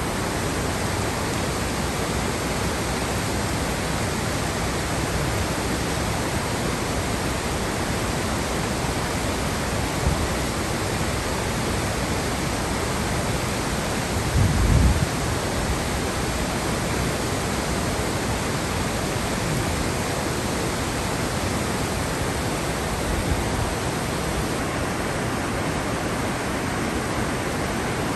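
Floodwater rushing across pavement in a steady, even wash of noise. A brief low thump about halfway through.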